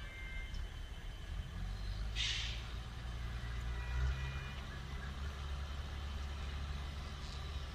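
Low, steady rumble of a train's diesel locomotive at the station, swelling slightly about four seconds in, with a short hiss of released air about two seconds in.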